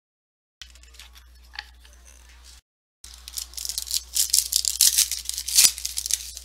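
Two short dropouts of dead silence with faint rustling between them, then, about three seconds in, a foil trading-card pack wrapper being crinkled and torn open by hand: a loud, dense, rapid crackle.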